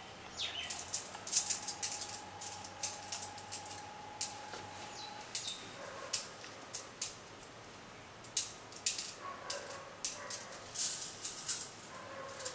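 Small glass pebbles clicking against each other in cupped hands as they are counted one by one: irregular sharp clicks, sometimes several in quick succession.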